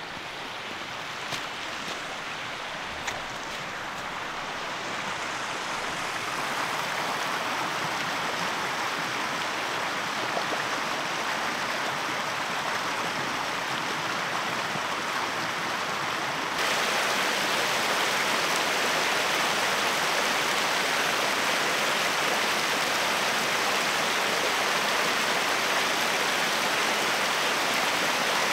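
Rushing stream: a steady hiss of running water that grows louder over the first few seconds, then jumps louder about halfway through.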